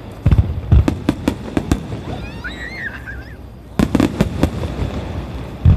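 Starmine fireworks display: shells bursting in quick clusters of sharp bangs, with a brief high wavering sound in the lull between them and another loud burst near the end.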